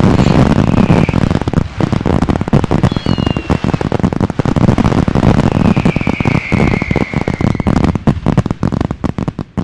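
Fireworks: dense crackling and bangs throughout, with short whistles falling in pitch about three seconds in and a longer whistle sliding slowly down from about six to eight seconds. The crackle thins out near the end.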